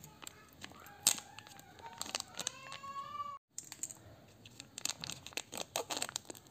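Foil lid of a plastic snack cup crinkling and tearing as it is peeled back, in bursts of crackles, with the densest crackling near the end. A short rising call cuts across the middle, and the sound drops out briefly just after it.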